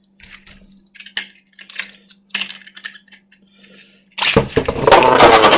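Small plastic clicks and rattles as the Beyblades are handled and fitted onto their launchers, then, about four seconds in, a sudden loud launch: the spinning tops whirr and scrape across the plastic stadium.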